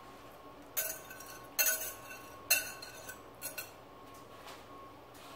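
Wire whisk knocking against a glass mixing bowl, about five sharp, ringing clinks roughly a second apart, as the last of the sauce is scraped out.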